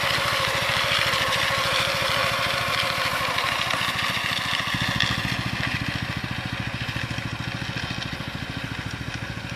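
Small engine of a HAK two-wheel walk-behind tractor running steadily while its spring-tine hoes rake through a gravel-and-shell path, with a scratchy rasp of tines on gravel over the engine. Both fade slowly over the second half as the machine moves away.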